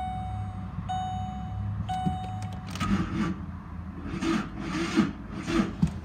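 The Ford Expedition's dashboard warning chime repeats about once a second with the driver's door open, three times, and stops a little over two and a half seconds in. Then comes a run of scuffing and rubbing noises about every half second.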